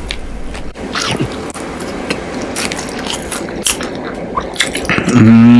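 Light clicks and rustling, then about five seconds in a loud, drawn-out vocal sound from a person, held with a wavering pitch.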